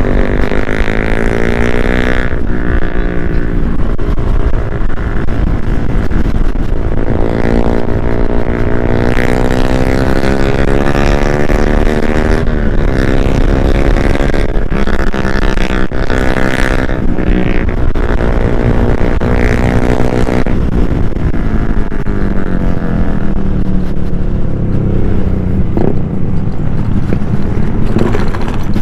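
Yamaha NMAX 155 scooter's single-cylinder engine under way, its pitch climbing steadily and falling back several times as the rider accelerates and eases off, over a constant low rumble of wind and road noise.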